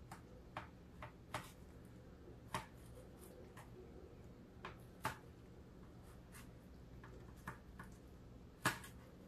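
Chef's knife tip tapping and clicking against a hard tray while cutting the cores out of tomato slices: faint, irregular taps, the loudest a little before the end. A low steady hum sits underneath.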